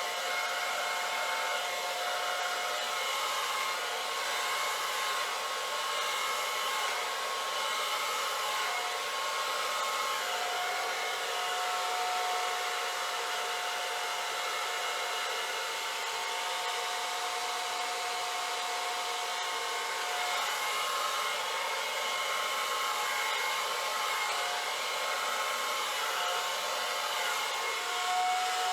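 Handheld hair dryer running steadily, blowing wet acrylic paint across a Dutch pour: an even hiss with a few steady whining tones.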